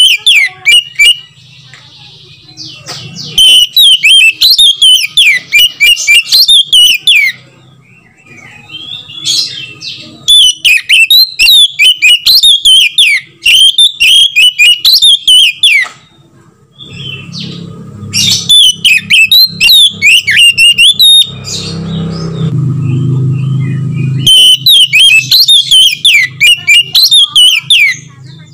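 Oriental magpie-robin singing loudly in bursts of rapid, varied whistled notes, each burst a few seconds long, with short pauses between them.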